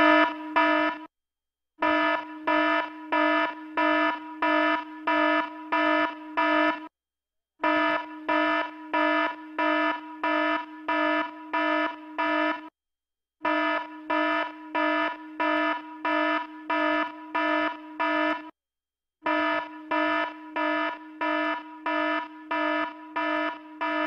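Electronic alarm bell sounding a pulsing beep, about two beeps a second, in runs of about five seconds broken by short gaps of under a second. It is the signal calling the contestants to gather.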